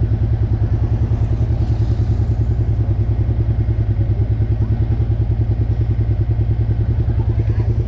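Honda CB500's parallel-twin engine idling steadily with an even, rapid pulse while the motorcycle waits at a red light.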